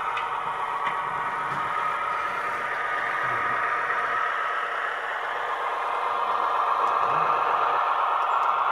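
Sound decoder in a Roco model of the SNCF X 2800 diesel railcar playing a diesel engine sound through the model's small loudspeaker as the railcar runs. A steady engine drone that grows a little louder near the end.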